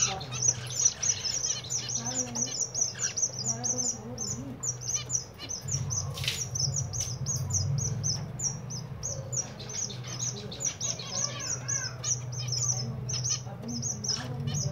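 A flock of zebra finches calling in an aviary: a continuous chatter of short, high chirps, several a second, over a low steady hum.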